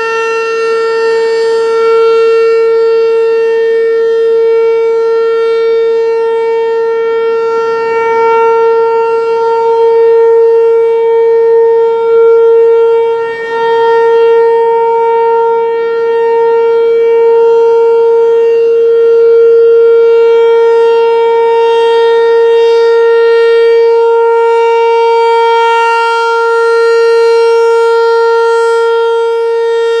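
American Signal T-128 rotating tornado siren sounding one steady, unwavering tone for its monthly test, at full speed. Its loudness swells and dips slowly as the horn turns toward and away from the listener.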